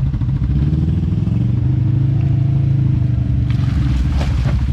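Off-road vehicle engine running at low speed during slow rock crawling, swelling and rising slightly in pitch about halfway through, with a few clattering knocks near the end.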